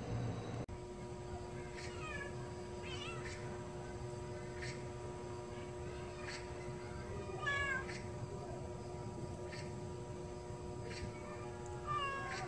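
A cat meowing: a few short, falling meows several seconds apart.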